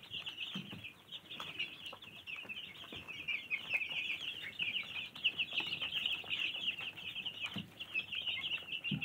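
Dozens of young chicks, many of them broiler meat-bird chicks, peeping all at once in a dense, high-pitched chorus of overlapping cheeps, with a couple of soft low thumps.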